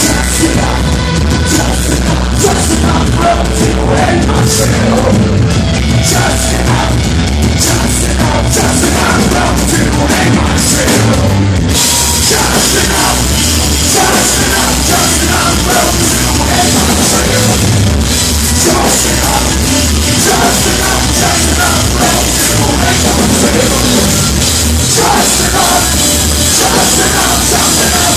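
Live metal band playing loudly: electric guitar and a drum kit. About twelve seconds in, the sound grows fuller and brighter.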